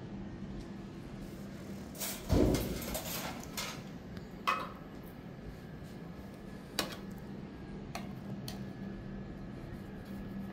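Scattered knocks and clatters of household objects, the loudest a short clattering bang about two seconds in, followed by several lighter knocks, over a steady low hum.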